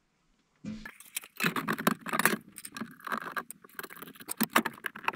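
Steel breaker-panel cover being handled and fitted back onto the electrical panel: irregular metallic rattling, scraping and clicking that starts just under a second in.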